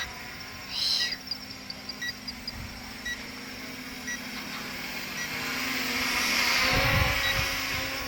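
Small GPS quadcopter drone flying, its propellers giving a steady hum that swells between about six and seven seconds, with low rumbles of wind on the microphone. Faint short beeps come about once a second.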